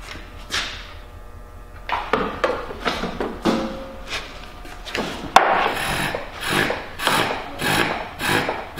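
Hand pump on a vacuum fluid extractor being worked up and down, each stroke a rasping draw, drawing fluid out of the motorcycle through a hose. The strokes are uneven at first, then settle into a steady pumping about twice a second from about halfway through.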